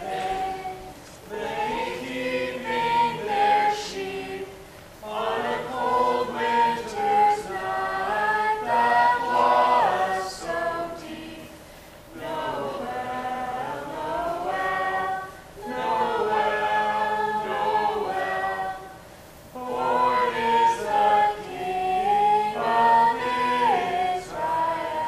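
Christmas carolers, a small group of voices singing a carol together in harmony, in sung phrases separated by short pauses.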